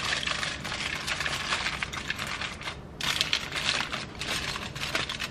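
Aluminum foil crinkling and crackling as it is folded and pressed shut into a packet around a fish fillet, with a brief pause about halfway through.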